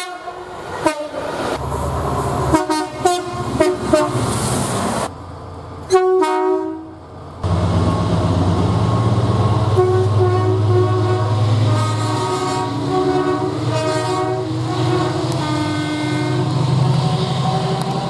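Railway locomotive air horns sounding a series of short blasts. After a brief break, a locomotive's engine runs loudly and steadily while its horn sounds again and again over it.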